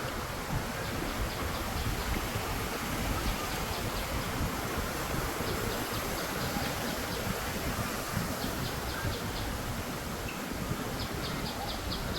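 Outdoor nature ambience: a steady rushing noise, with short runs of rapid high chirps every second or two.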